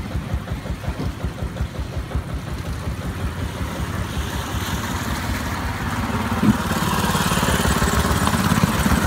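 Small single-cylinder petrol engine of a long-tail boat running with a steady low chugging, then growing louder about halfway through as it picks up speed, with rushing water joining near the end.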